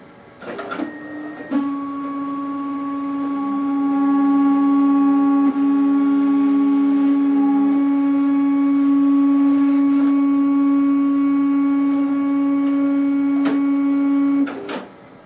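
Zebra ZXP Series 8 card printer's card-transport motors running a heated-roller cleaning cycle on an inserted cleaning card: a steady whine with a lower second tone that drops out about halfway. There is a click in the middle and another near the end, and the motor then stops.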